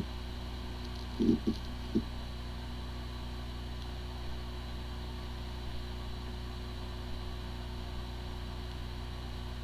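Hard drive spinning with a steady hum, with a few brief low noises between one and two seconds in. The drive spins fine but is not detected by the computer, the symptom of corrupted disk firmware.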